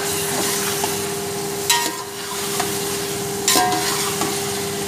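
Raw chicken pieces sizzling as they fry in ghee with browned onions in a large aluminium pot, stirred with a perforated metal spatula; the spatula clanks against the pot twice, with a short ring. This is the first frying of the chicken in the onion, ginger and garlic masala.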